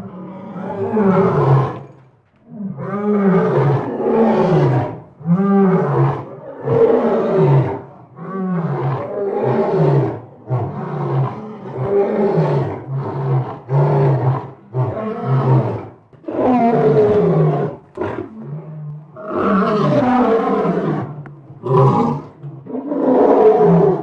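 Lion roaring: a long series of deep roars, one after another about every second, many falling in pitch, with a few short pauses between bouts.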